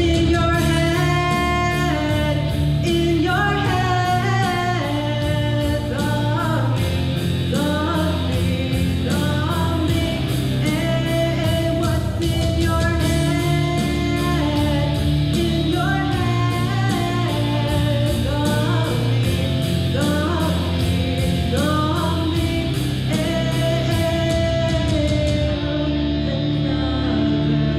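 A woman singing into a microphone over a rock backing track with guitar, bass and a steady beat. The high ticking of the beat drops out near the end.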